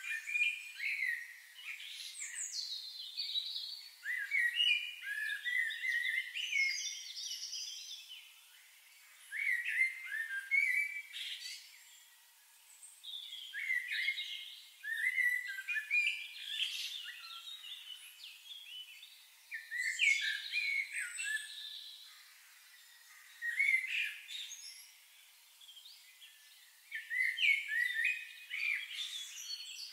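Birdsong: songbirds singing phrases of quick chirps and warbles, each lasting a few seconds and separated by short pauses.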